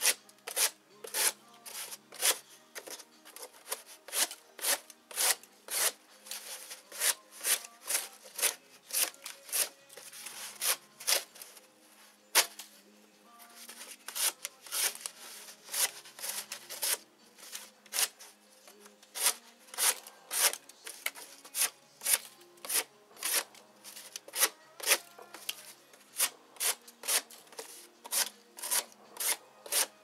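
Victorinox Hunter XS folding knife's locking stainless-steel blade slicing strips off a sheet of corrugated cardboard: a run of short rasping cuts, roughly two a second, with a brief pause a little before halfway.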